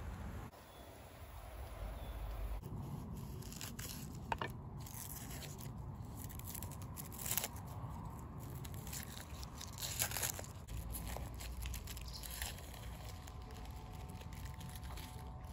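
Dry onion skin tearing and crackling as an onion is peeled by hand with a knife, in short scattered rustles.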